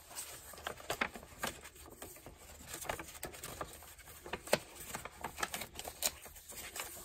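Paper and cardstock of a handmade journal's fold-out page being folded closed by hand: irregular soft taps, rustles and creasing clicks, with one sharper tap about four and a half seconds in.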